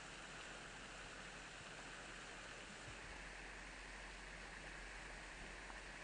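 Thin waterfall falling down a high cliff face into spray: a faint, steady, even rush of falling water.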